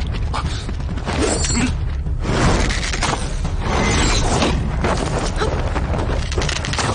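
Staged sword-fight sound effects: a dense, unbroken run of clashing, crashing impacts over a steady low rumble.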